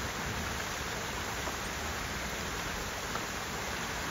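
Steady rushing and splashing of flowing water from a small garden stream.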